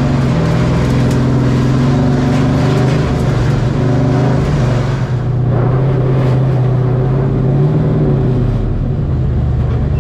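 Race truck's engine heard from inside the cab, a steady drone at low engine speed. Near the end its pitch briefly rises, and then the steady note drops away.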